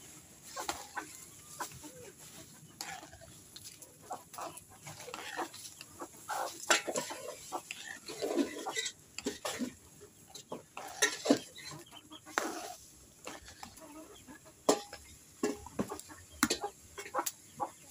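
Thick muri ghonto curry boiling hard in a pan, its bubbles bursting in irregular pops and plops.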